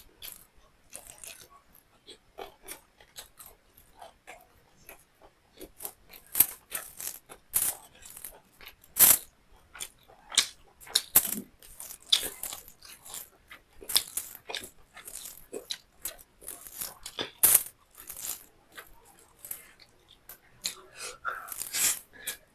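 Close-miked chewing of beef liver and rice: wet mouth smacks and clicks coming irregularly, several a second, loudest in the middle stretch.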